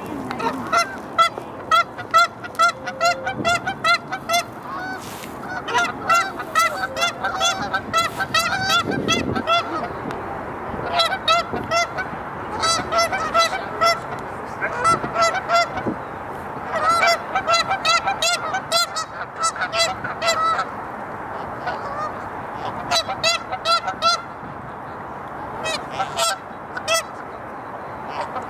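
Canada geese honking: bouts of short, rapid calls, several a second, with pauses between the bouts.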